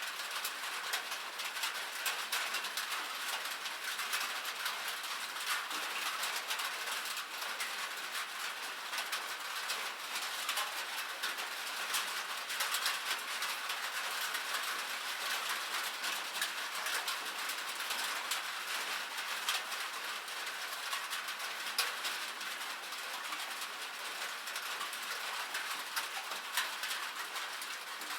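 Rain pattering on a roof: a steady hiss of rainfall thick with many small sharp drop ticks, with no thunder.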